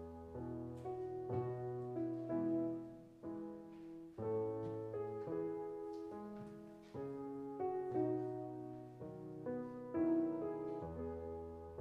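Piano playing a slow, gentle piece: chords struck about once a second over deep held bass notes, each fading slowly.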